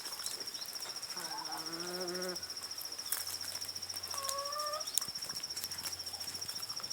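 Crickets trill steadily at a high pitch throughout. A chicken gives a low, drawn-out wavering call about a second in, and a short, higher call follows just after four seconds.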